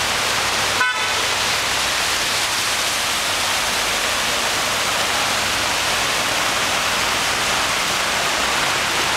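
Steady rush of floodwater pouring along a flooded road, with a short car horn beep about a second in.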